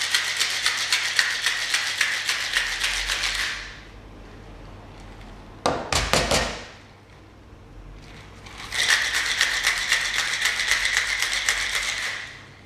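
Ice cubes rattling hard inside a Boston shaker tin being shaken vigorously, in two spells of about four seconds each. A single loud knock from the shaker comes between them.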